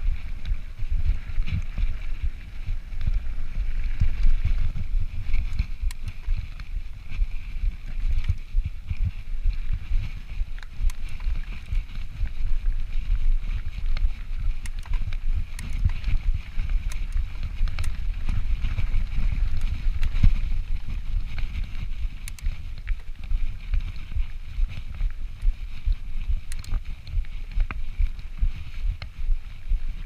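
Wind rumbling on a chest-mounted action camera's microphone as a 2017 Yeti SB5 full-suspension mountain bike rolls over a rocky dirt singletrack. Scattered clicks and rattles come from the tyres on gravel and from the bike's parts.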